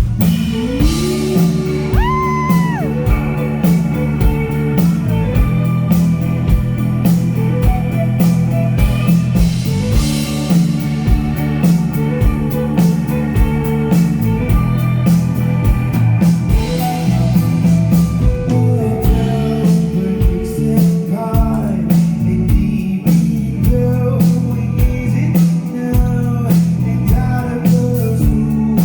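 Live rock band playing: electric guitar and bass over a steady drum beat.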